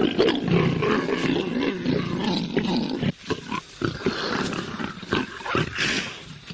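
A mating pair of leopards calling loudly, a run of harsh growls and snarls. There is a short break about three seconds in, and the calls stop about six seconds in.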